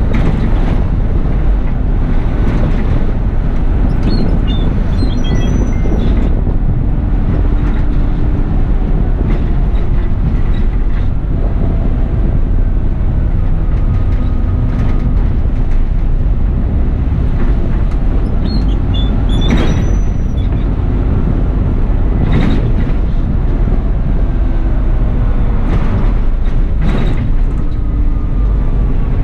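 A bus driving along, heard from the driver's seat: a steady low engine and road rumble with occasional sharp knocks and rattles, and a faint whine that slides up and down in pitch.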